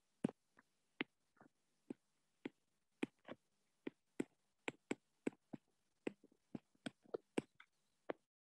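Faint, irregular clicks of a stylus tapping a tablet's glass screen during handwriting, about two to three a second.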